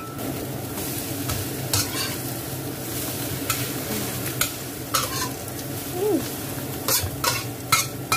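Clam and egg omelette sizzling in oil in a wok, while a metal spatula scrapes and taps against the pan at irregular intervals, breaking up and turning it.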